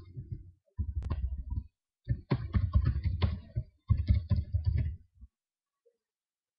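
Typing on a computer keyboard: four quick runs of keystrokes, stopping about five seconds in.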